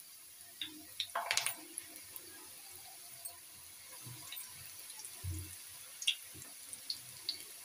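Samosas deep-frying in hot oil: a steady sizzle with scattered pops and crackles, flaring louder about a second in.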